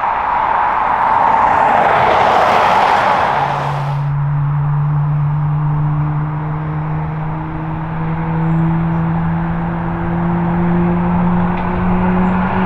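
Boeing 777-300 jet engines running at taxi power: a broad rushing noise that swells and then stops abruptly about four seconds in, followed by a steady low engine hum that slowly rises in pitch.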